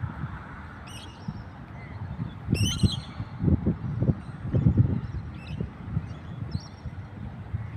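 Birds calling: two short, high calls about one second and two and a half seconds in, with fainter calls later, over low irregular rumbles.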